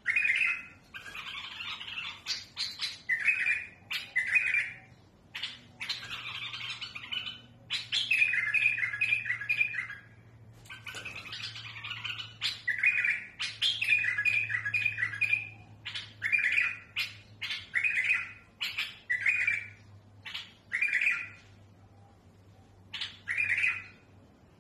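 Caged bulbul singing in short, rough-voiced phrases. Each phrase is a quick run of notes, with brief pauses between phrases, and the singing stops near the end. This is the harsh-voiced song kept for tutoring young bulbuls.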